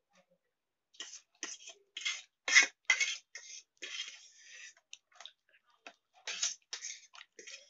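Metal spoon scraping and clinking against a steel plate in a run of short, irregular clicks, about two a second, the loudest a little over halfway through the first half.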